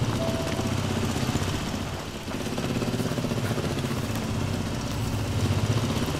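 A low, steady rumble with a fast fluttering pulse, like a motor running.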